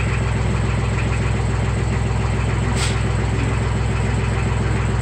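Tractor engine running steadily, with one brief sharp click or tick a little under three seconds in.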